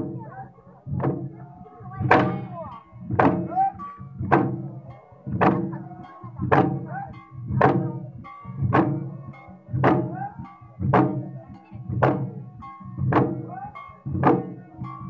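A group of Garo dama drums, long wooden barrel drums played by hand, beating together in a steady Wangala dance rhythm of about one heavy stroke a second, each stroke booming and ringing on.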